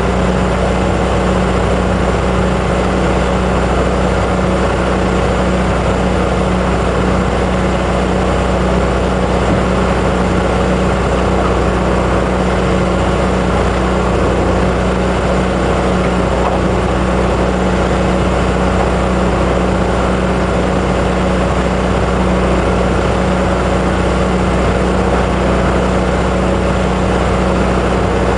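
An engine running steadily on a diving boat: a constant low drone with an even noise over it, unchanging throughout.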